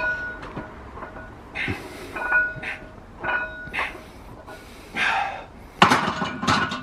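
Loaded barbell clanking, with short metallic rings from the plates, during a warm-up set of bench press, and hard breaths between the lifts. A louder clank comes near the end.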